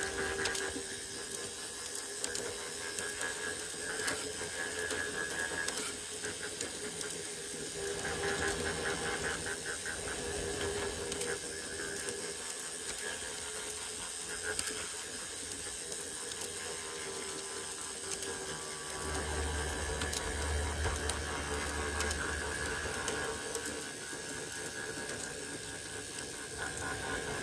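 G scale model train running along outdoor garden track, heard close up from the train: a steady whirring drive with a held whine, and small clicks from the wheels on the rails.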